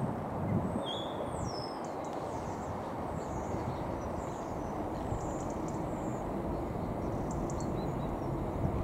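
Small birds chirping over a steady low rumble, while a Class 325 electric mail train approaches, adding a faint steady hum from about halfway through.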